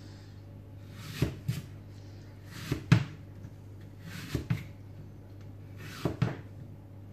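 A blade knocking against a plastic cutting board as seeds are cut out of an apple: four pairs of short knocks about a second and a half apart, the one near the middle the loudest, over a low steady hum.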